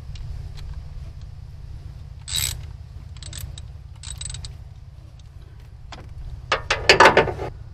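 Metal clinks, scrapes and rattles of an alternator being shifted by hand on its mounting bracket and a ratchet wrench being handled, with short scrapes a few seconds in and a quick run of loud clacks near the end.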